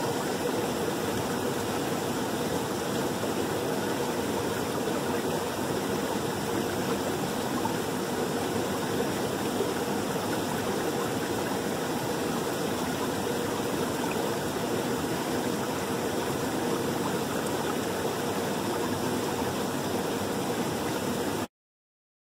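Steady rushing of a rocky canyon creek, water running over stones, which cuts off abruptly about a second before the end.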